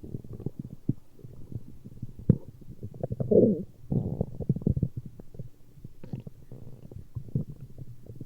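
Human stomach growling: irregular low gurgles and small pops, with a longer gurgle that bends up and down in pitch about three seconds in.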